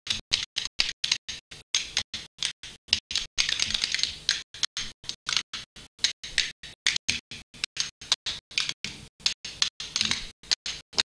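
Hand clapping in a fast, even rhythm, about four to five claps a second, with no music. A short stretch of unbroken clatter comes about four seconds in.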